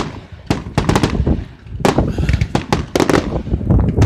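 Aerial fireworks bursting in the sky: quick runs of sharp bangs and crackles, one cluster about half a second in and a denser one from about two to three seconds in.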